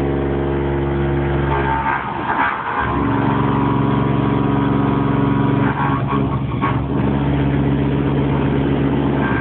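Eagle 1000 CNC vertical milling machine high-speed roughing with a Tungaloy cutter: the spindle runs at 1400 RPM, taking 1 mm per pass at a fast feed, giving a steady machine hum with cutting noise. The sound changes briefly about two to three seconds in and again around six to seven seconds.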